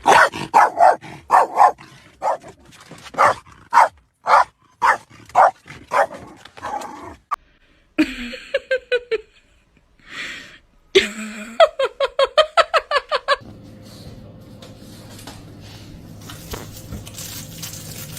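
A dog barking over and over, about two barks a second, then a drawn-out call falling in pitch, then a quick run of short high yips. In the last few seconds a steady hiss builds up.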